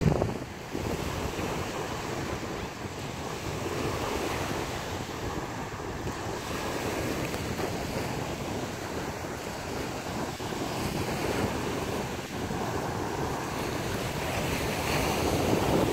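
Surf washing onto a beach, with wind buffeting the microphone; a steady rushing noise.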